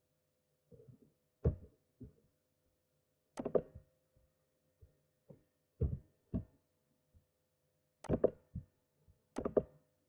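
Scattered clicks and knocks at a computer desk, about a dozen, some in quick pairs, over a faint steady electrical hum.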